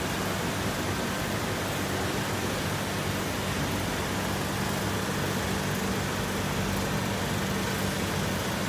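Steady background hum with an even hiss, a low drone holding one pitch throughout, typical of ventilation or refrigeration machinery running.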